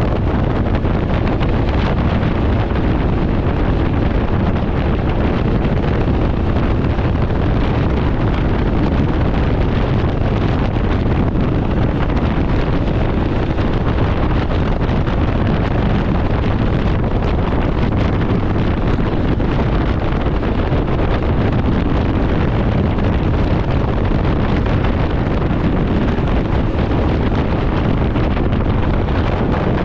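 Steady wind rushing over the microphone of a moving Can-Am Ryker 900, with the three-wheeler's engine and road noise blended underneath and no change in pace.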